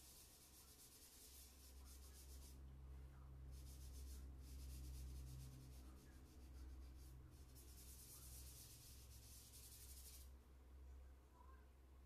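Charcoal being scrubbed across drawing paper in shading strokes: a fine scratchy hiss in four spells with short breaks, stopping about ten seconds in.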